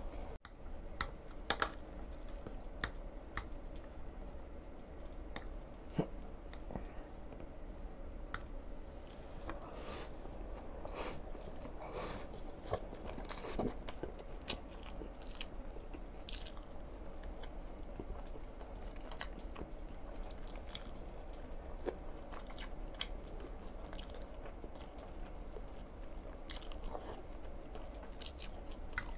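Close-up chewing of a mouthful of Nongshim Chapaghetti black-bean instant noodles, with irregular wet mouth clicks and smacks. A low steady hum sits underneath.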